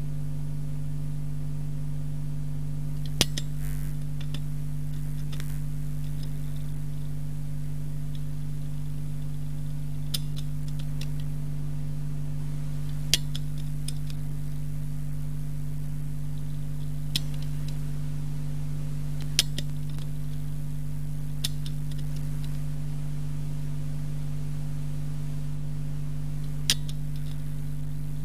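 Steady electrical mains hum with no speech, broken by about seven short, sharp clicks spread at uneven intervals.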